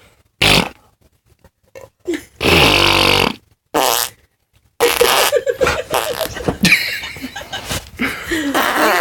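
Imitation fart noises made by a person: a few short ones, then a long loud one about two and a half seconds in that drops in pitch, and from about five seconds on more fart noises with hardly a pause.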